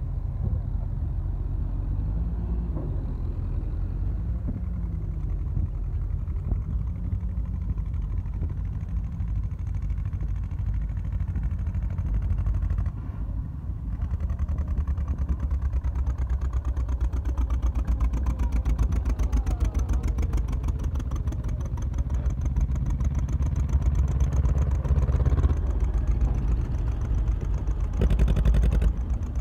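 Old tractor engines running as tractors climb past at close range: first a small grey tractor, then a Lanz Bulldog whose single-cylinder hot-bulb two-stroke engine chugs with a fast, even beat. The sound is loudest near the end, as it passes right by.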